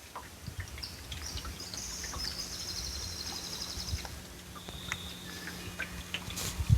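Birds calling with high, rapid chirping trills, strongest in the first half, over scattered faint clicks and a low steady hum.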